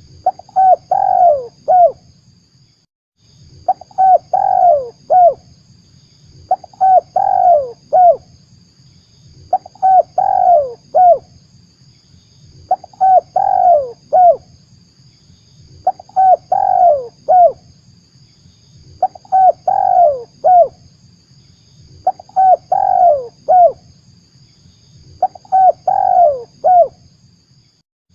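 Spotted dove (tekukur) cooing, a lure recording: the same phrase of several falling coos repeated about every three seconds. A faint steady high buzz runs behind it, and the whole recording drops out briefly about three seconds in.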